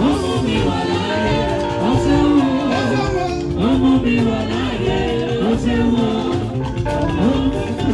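Live gospel music: several singers on microphones over a church band.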